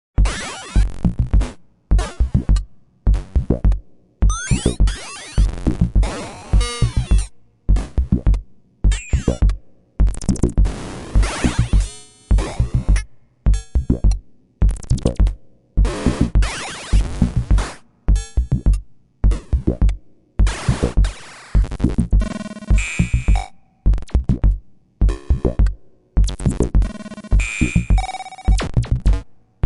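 A run of separate cartoon boing sound effects, about two dozen of them, one after another roughly every second. Each is short, with a low thump at its start, and several slide or wobble in pitch.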